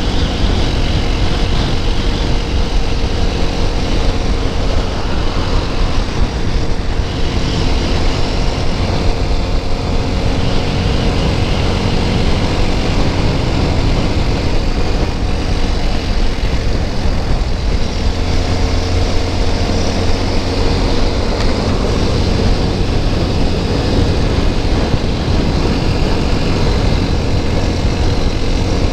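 TVS Apache RTR 200 4V's single-cylinder engine running steadily at highway cruising speed, under heavy wind rush on the microphone.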